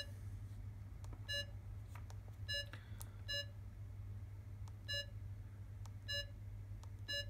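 Masimo Rad-5 pulse oximeter giving about seven short, identical beeps at uneven intervals as its front buttons are pressed to step through the settings menus, over a faint steady low hum.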